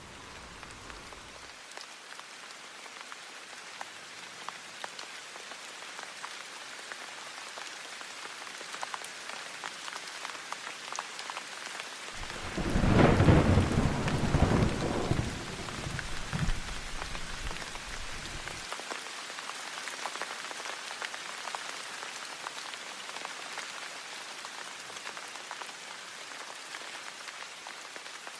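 Steady rain falling, with a loud rumble of thunder about twelve seconds in that lasts about six seconds and then dies away.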